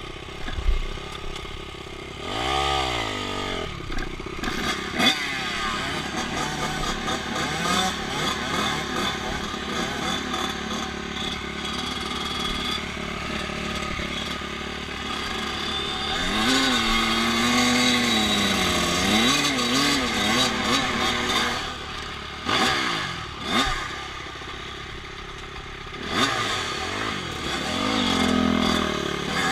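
Honda CRF250F four-stroke single-cylinder dirt bike engine running and being revved, its pitch rising and falling several times with short dips between.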